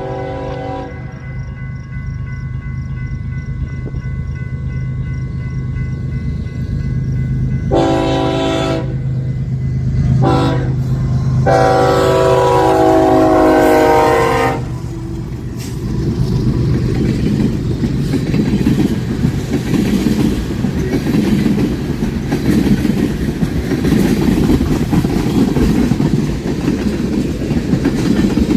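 Diesel locomotive's multi-note air horn sounding the grade-crossing pattern (long, long, short, long) as the train approaches, over its engine hum. From about halfway through, the train passes close by with a heavy rumble and the clickety-clack of wheels over rail joints.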